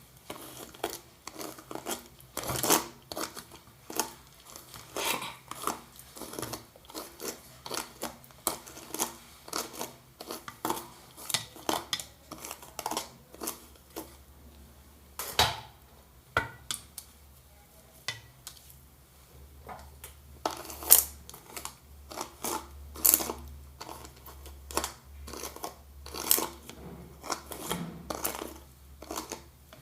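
A comb dragged again and again through a doll's wet synthetic hair. Each stroke is a short scratchy click or swish, coming irregularly about once or twice a second.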